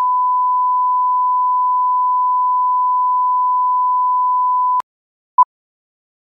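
Steady single-pitch reference test tone of a colour-bar test signal, cutting off with a click near the end, followed about half a second later by one short beep of the same pitch from a film-leader countdown.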